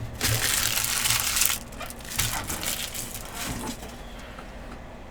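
Trading cards and plastic pack wrappers being handled: a loud crinkling rustle for about a second and a half, then softer rustles and a few clicks.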